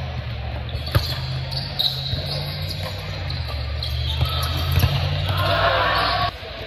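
Volleyball being struck during a rally, with sharp hits about a second in and again around four to five seconds. A low steady hum runs underneath and cuts off suddenly near the end.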